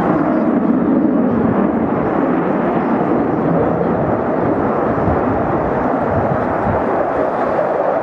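Eurofighter Typhoon's twin jet engines running at display power, a steady, even rush of noise with no breaks.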